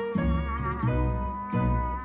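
Instrumental background music with plucked strings over a bass line, the bass notes falling about twice a second.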